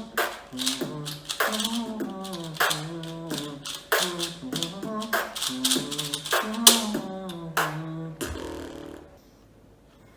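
Beatboxing: a wordless vocal melody line carried under sharp mouth-made snare and hi-hat strikes in a steady beat. It stops abruptly about nine seconds in.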